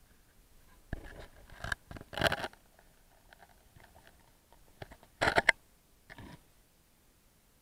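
Scratchy scraping and crackling, a cluster of rasps about a second in and a short, louder burst just past five seconds, with a fainter scrape soon after.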